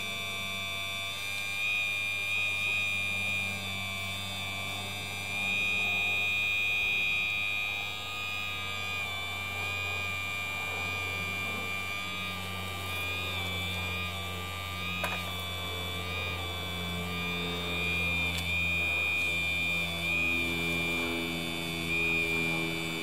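Hydraulic pump of an RC hydraulic excavator running with a steady high-pitched electric whine over a low hum, swelling and easing as the boom and bucket are worked. In the last few seconds a lower droning tone joins in.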